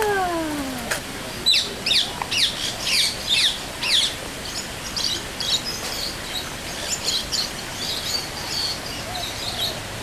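A songbird calling in a quick run of sharp, high chirps that each sweep downward, about two to three a second for a few seconds, followed by fainter, scattered chirping from birds.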